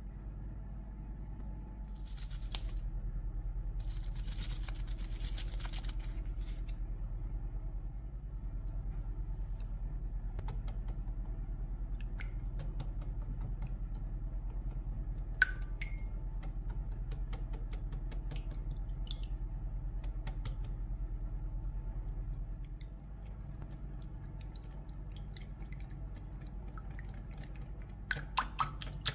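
Silicone whisk beating eggs and cream in a glass bowl: soft sloshing with light clicks of the whisk against the glass, and a sharper click about halfway through. A steady low hum runs underneath.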